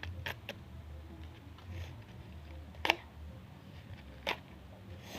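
Blind-box packaging being handled and opened: a few short, sharp clicks and rustles, the loudest about three seconds in and another about a second and a half later.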